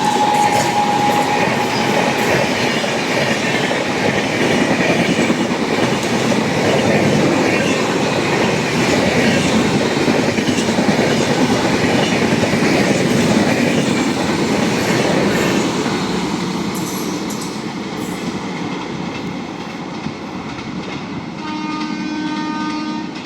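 Indian Railways express train passing at speed: its horn sounds at the start, dropping slightly in pitch as it goes by, then the rush and clatter of the coaches' wheels on the rails carries on and slowly fades. A horn sounds again briefly near the end.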